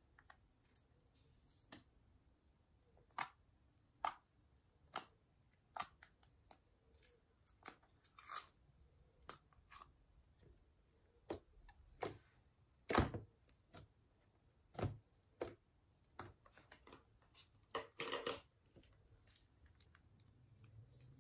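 Thick slime being peeled out of a plastic tub and pressed by hand, giving irregular sticky clicks and pops, along with the light knocks of the plastic tub being handled.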